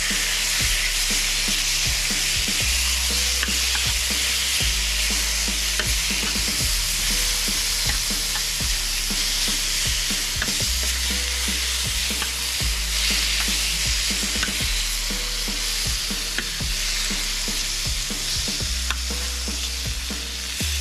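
Slices of rump steak (alcatra) frying in hot fat in a pan: a steady sizzle with many scattered pops and crackles of spitting fat.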